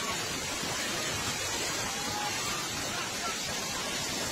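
Fast-flowing floodwater rushing steadily, an even, unbroken noise of a muddy river in spate, with faint distant voices of onlookers.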